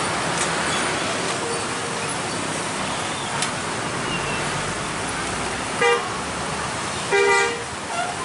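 Steady road traffic passing, with a vehicle horn honking twice: a short toot about six seconds in and a longer blast about a second later.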